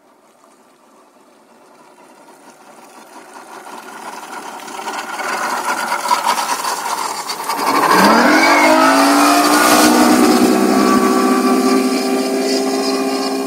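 Outboard boat motor running under way, with rushing water and wind noise that builds over the first several seconds. About eight seconds in the engine note jumps and climbs in pitch, then holds a steady drone at speed.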